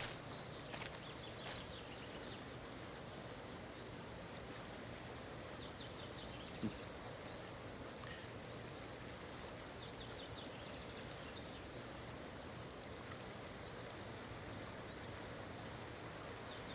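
Faint outdoor ambience: a steady low hiss and hum with a few faint bird chirps, and a single soft knock about a third of the way in.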